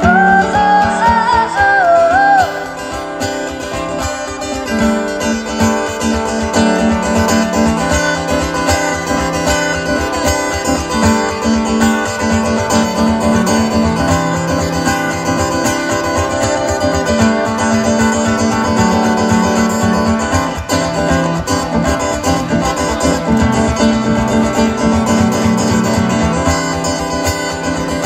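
A woman's sung phrase with acoustic guitar ends about two and a half seconds in, and the acoustic guitar then plays on alone, picked and strummed.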